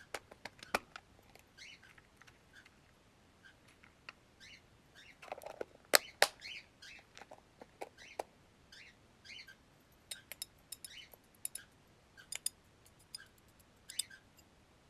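Pet parrots giving short, soft chirps among scattered sharp clicks and taps, with a loud click about six seconds in and a run of quick light ticks around ten to twelve seconds in.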